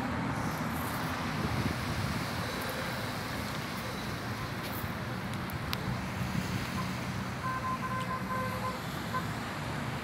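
Steady road traffic noise from cars passing on a nearby coast road, with a few short beeps near the end.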